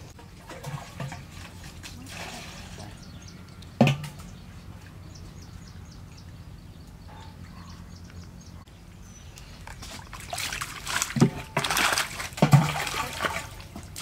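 Water sloshing and splashing, loudest in a stretch of about three seconds near the end, with a sharp knock about four seconds in.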